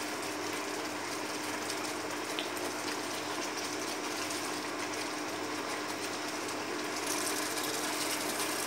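Thick curry gravy with paneer bubbling and spluttering in a nonstick pan as a spatula stirs it, a fine steady crackle over a low hum, turning a little brighter about seven seconds in.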